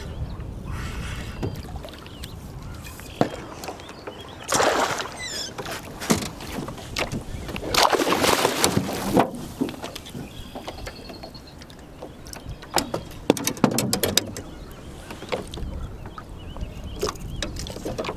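A hooked pike splashing in the water beside a small fishing boat as it is landed, in two loud bursts about four and a half and eight seconds in, followed by a run of sharp knocks and clicks against the boat as the fish and net are handled at the gunwale.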